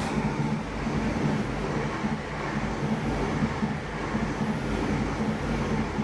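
Class 800 train, unit 800309, passing close by: a steady loud rumble of wheels on rail with a low engine drone.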